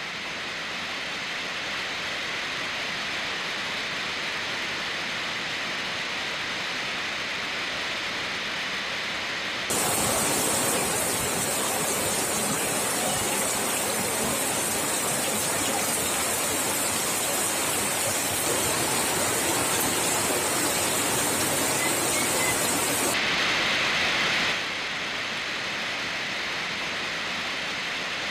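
Steady rush of floodwater pouring over the overflowing Tulsi Lake spillway. About ten seconds in, a louder, hissier rush of water cuts in abruptly and lasts about thirteen seconds before the softer rush returns.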